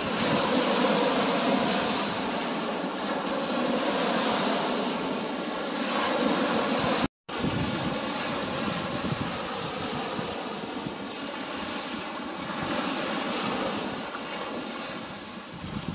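Small surf breaking and washing up a sandy beach, a steady rushing noise that swells and eases, with a brief dropout about seven seconds in.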